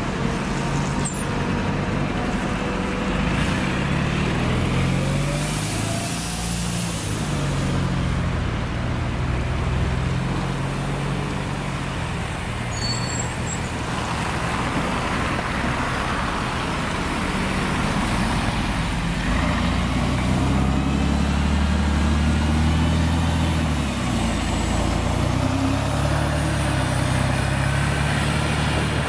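City buses' engines running as they pull away and pass, the engine note stepping up and down through gear changes over steady road noise, with a short hiss of air brakes about six seconds in.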